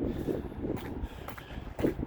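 Footsteps of someone walking outdoors, over wind rumbling on the microphone.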